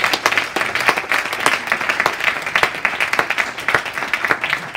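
A small audience applauding, many hands clapping steadily.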